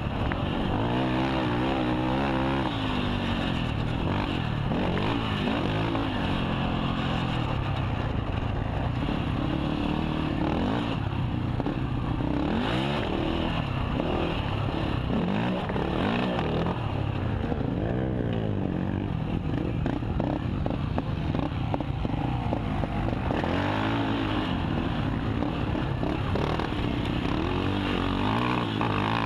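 KTM 450 XC quad's single-cylinder four-stroke engine under race throttle, revving up and falling back again and again as the rider accelerates and backs off over the dirt track.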